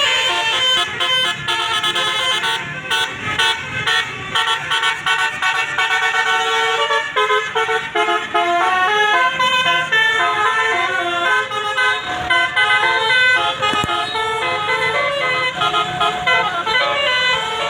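Bus musical air horn (Basuri 'telolet' horn) playing a melody, several horn tones stepping quickly from note to note.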